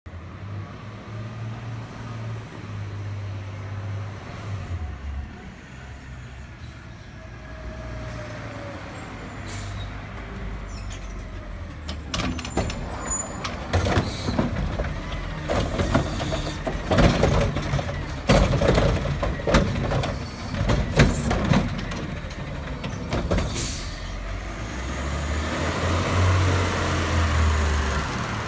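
Front-loader garbage truck's diesel engine running, then a long run of loud clanks and bangs from the middle on, as the Curotto-Can's arm grabs a wheeled trash cart and empties it. Near the end the engine revs up as the front arms lift the can over the cab.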